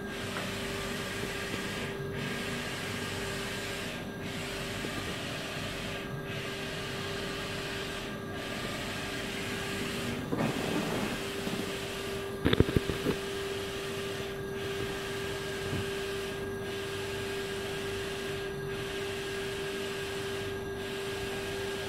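Wide-format inkjet printer running: a steady mechanical hum and hiss with a regular swell-and-dip about every two seconds as the print-head carriage shuttles across the media. A few brief knocks sound near the middle.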